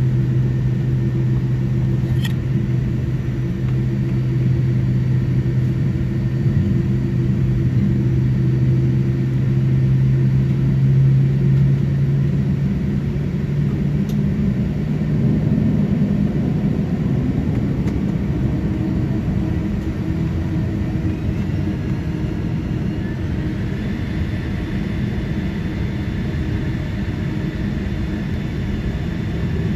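Boeing 787-10's GE GEnx-1B turbofan engines at taxi power, heard inside the cabin as a steady low hum and rumble. The hum's low tones fade about halfway through, and a faint higher whine rises about two-thirds of the way in.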